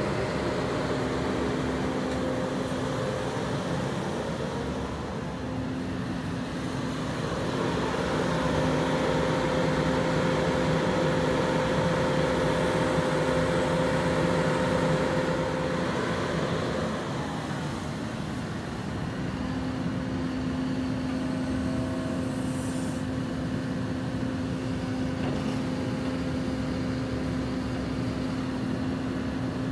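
Cat MH3022 wheeled material handler's diesel engine running with its hydraulics working the boom, a steady hum throughout. The sound swells for several seconds in the middle as the machine works harder, then settles back.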